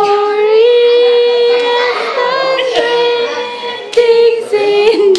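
A high voice singing long, drawn-out notes that step up and down in pitch.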